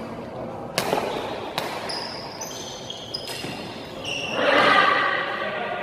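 Badminton rally: a racket strikes the shuttlecock with two sharp smacks about a second apart, then court shoes squeak on the hall floor in several short high squeals. A louder, drawn-out squeal comes a little past halfway.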